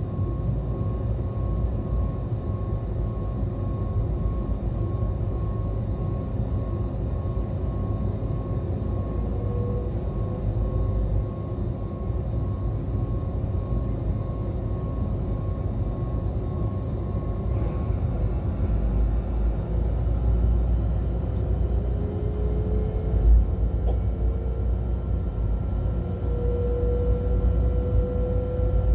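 Steady low rumble of a Siemens Vectron (class 193) electric locomotive running slowly, heard from inside its cab. A faint pulsing high tone runs until about two-thirds through. From there a thin whine from the traction drive rises in pitch as the locomotive picks up speed.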